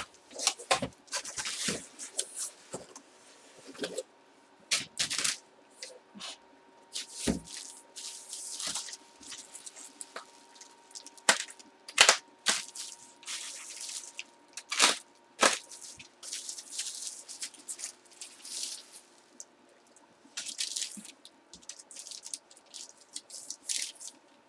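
Bubble wrap and a plastic sleeve being pulled off a baseball bat by hand: irregular crinkling rustles with a few sharp cracks, the loudest a little past the middle.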